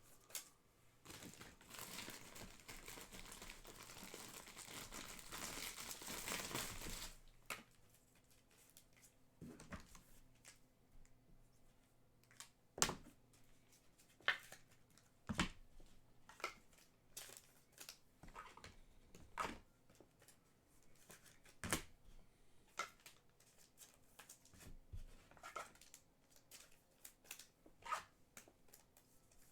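Trading-card pack wrappers crinkling and tearing for about six seconds, then scattered light clicks and taps of cards being handled and sorted.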